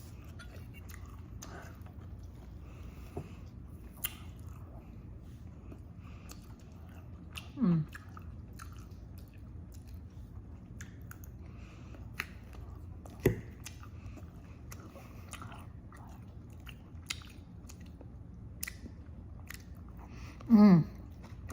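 Close-up chewing and biting of food, with small wet mouth clicks and light crunches scattered throughout. Two brief falling-pitch, voice-like sounds come about 8 s in and near the end.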